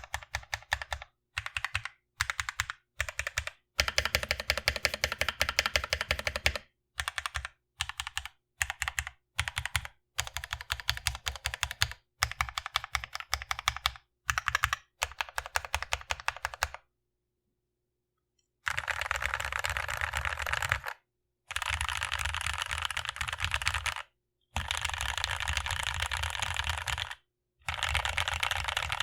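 Gateron Ink Black V2 linear mechanical keyboard switches on an aluminum plate, keys tapped in quick runs of clicks with short pauses between them. After a brief silence about two-thirds of the way in, the tapping comes in longer, denser, steadier runs.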